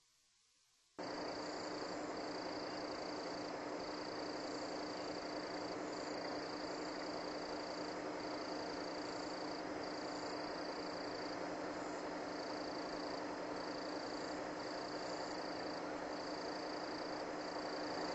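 Steady hiss with a low hum from an open broadcast audio feed, switching on suddenly about a second in. A faint high tone in the hiss cuts in and out every second or so.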